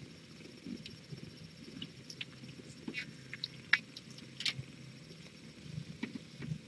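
Kittens scuffling and wrestling on a fleece blanket: quiet, irregular small clicks and scratches over a low rustling rumble, with one sharper tick about three and a half seconds in.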